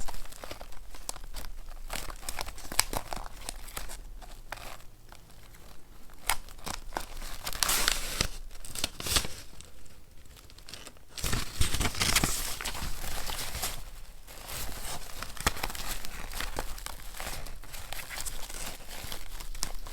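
Paper and collage materials being handled close to the microphone: crinkling, rustling and tearing with many small taps. Louder spells come about eight and twelve seconds in, the second with low thuds as the paper is handled.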